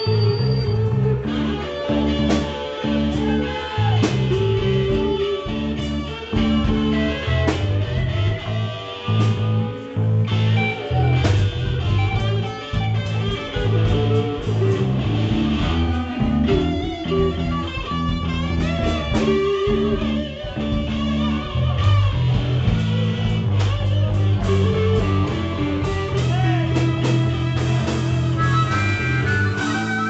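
Live band playing a blues-rock number, electric guitars over a heavy, pulsing bass line with frequent sharp percussive hits.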